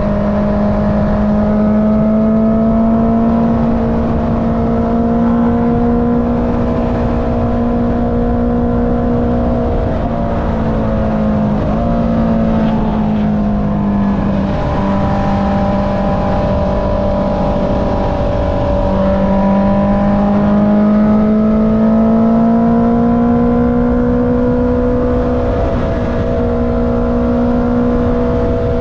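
Honda CB650R's inline-four engine running through an Akrapovic exhaust at steady cruising revs. Its pitch drifts gently, with a few brief dips around the middle and a slow climb in the second half, over a rough rush of wind and road noise.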